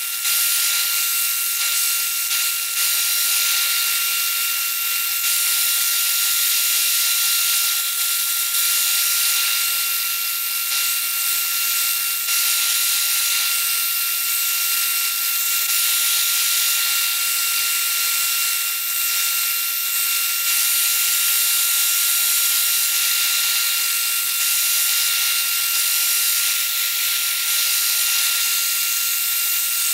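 Benchtop spindle sander running with a steady motor whine, while a wooden handle scale, likely Bocote, is pressed against the spinning sanding drum. The contact gives a continuous rasping hiss that swells and eases slightly as the piece is worked.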